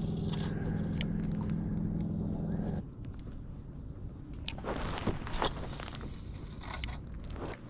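A steady motor hum cuts off suddenly about three seconds in, followed by handling noises: rustling and a few light knocks and clicks.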